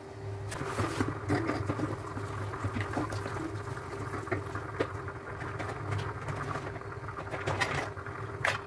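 A steady low mechanical hum, with scattered clicks and rustles of plastic being handled.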